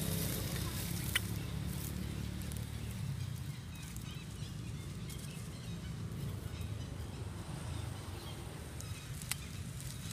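Outdoor background noise: a steady low rumble, with a faint engine hum fading away over the first few seconds. Two faint clicks come about a second in and again near the end.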